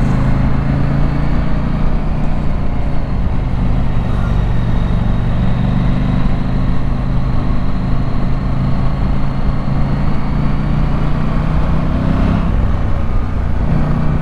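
Husqvarna Norden 901's parallel-twin engine running at steady riding revs, with a brief dip in the engine note near the end.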